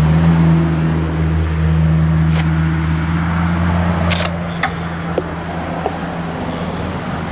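A steady low mechanical hum, with a few short scrapes and taps of a mason's trowel on brick and mortar, two of them about two and four seconds in.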